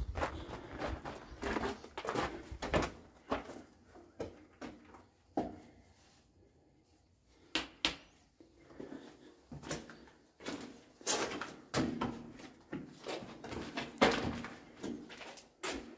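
Footsteps walking on a hard floor inside a bare cinder-block room: irregular scuffs and knocks, pausing for about a second and a half around six seconds in.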